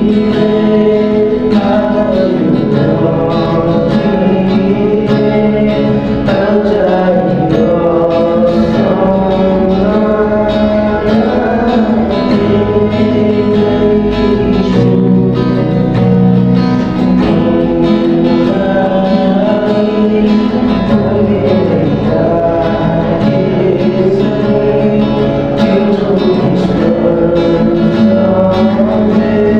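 Background song: a sung melody over guitar-led backing music with a steady accompaniment.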